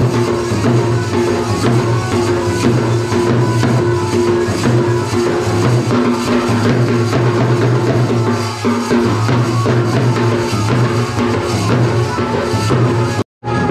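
Drums carried at the waist and beaten rapidly with sticks, a fast dance rhythm, over a steady pitched melody. The sound cuts out for a moment near the end.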